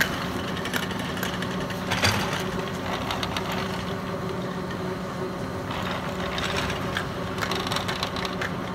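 Surface ski lift running: a steady mechanical hum with scattered clicks and rattles.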